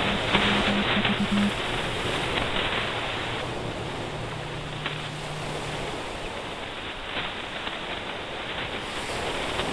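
Steady rushing noise of surf and wind. Short, low pulsing tones come in the first second and a half, and a steady low hum runs from about four to six seconds in.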